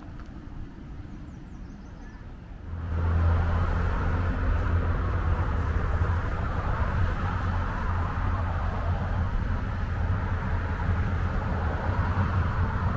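Steady rumble of road traffic, cutting in abruptly about three seconds in and running on evenly.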